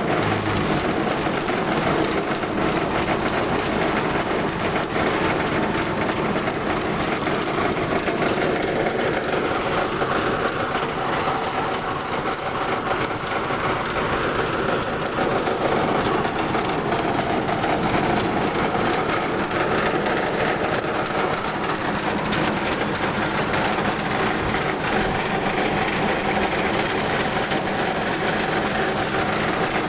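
Belt-driven rice huller with bran sieve running steadily while rice is fed through it: a dense, unchanging mechanical noise.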